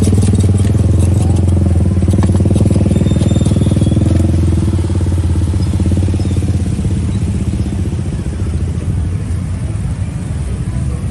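A vehicle engine running close by, a steady low hum that slowly gets quieter over the second half.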